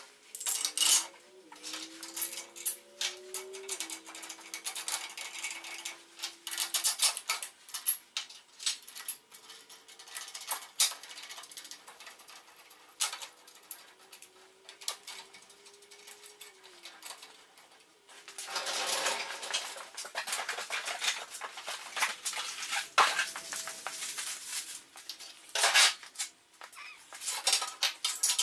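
Steel parts clinking, knocking and scraping as they are handled and fitted together, with irregular sharp clanks. A few short squeaky gliding tones come in the first few seconds, and a denser stretch of scraping noise comes about nineteen seconds in.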